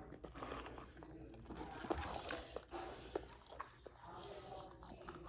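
Faint crunching and chewing of food close to the microphone, with scattered small clicks and crackles.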